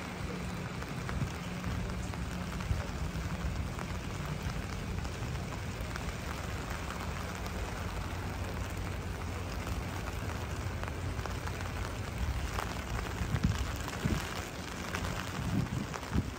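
Steady rain falling, with the low, steady hum of a boat engine running underneath. A few low bumps come near the end.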